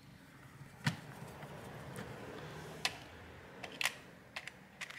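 Phillips screwdriver driving screws into a laptop's plastic bottom case: a handful of sharp clicks and taps of the tool and screw against the case, with a faint rasp of turning between them.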